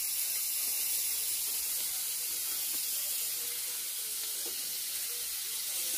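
Steady high hiss of food sizzling in a hot frying pan.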